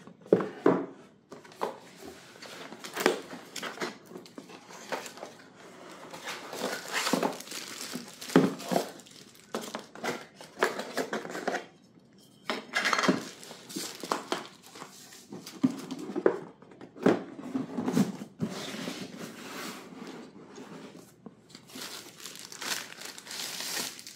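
Packaging being unwrapped and handled: crinkling wrapping and tearing, with irregular knocks and scrapes of the box and parts.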